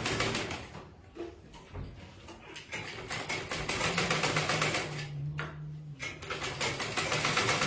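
Sewing machine stitching in bursts, a fast even run of needle strokes that stops about a second in, picks up again after a few seconds, pauses briefly and restarts near the end.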